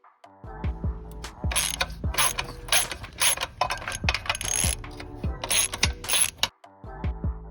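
Bursts of rapid metallic ratcheting clicks from a hand tool taking the moped apart, loudest from about a second and a half in until near the end, over background music with a steady beat.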